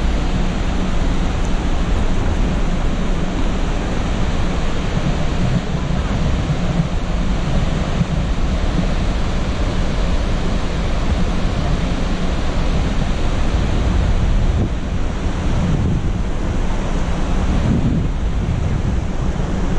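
Steady, loud rush of water from Upper Mesa Falls, a large waterfall on the Henrys Fork, pouring over its ledge, an even unbroken noise heavy in the low end.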